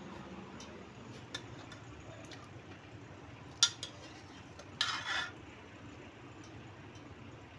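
Metal kitchen utensils and dishes being handled: a few sharp clinks, the loudest about three and a half seconds in, then a half-second clatter about five seconds in, over a steady low background.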